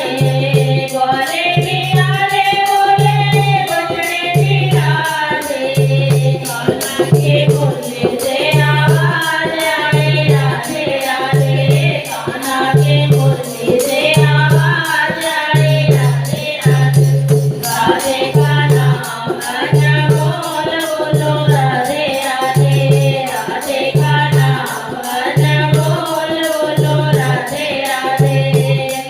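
Devotional Hindi bhajan: singing voices over a steady, evenly repeating low drumbeat, with percussion ticking in the high end.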